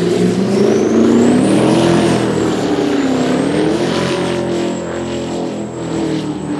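High-performance powerboat engines running at speed, their note wavering up and down as the throttle changes. A thin high whine rises over the first second or two, dips, rises again, then holds steady.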